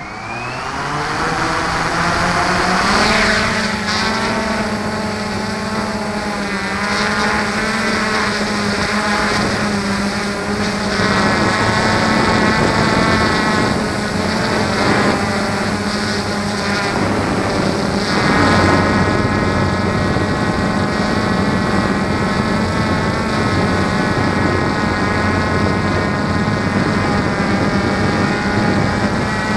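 Small electric drone's motors and propellers heard from its onboard camera: a whine that rises in pitch as it spins up and lifts off in the first few seconds, then a steady buzzing whine whose pitch shifts now and then as it flies.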